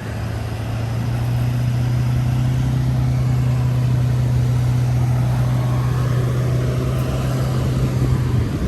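Ford diesel engine running under load at steady revs in soft beach sand, a constant low drone that stops suddenly near the end.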